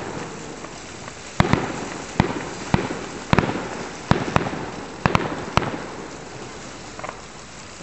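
Aerial firework shells bursting: about a dozen sharp bangs at irregular intervals, some in quick pairs, each trailing off in a rolling echo. The bangs thin out to one faint bang near the end.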